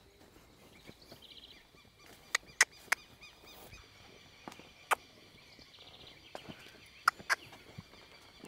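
Outdoor ambience of birds calling over a steady high hum, broken by about six sharp clicks in three groups: three close together in the first third, one near the middle, and two near the end. The clicks are the loudest sounds.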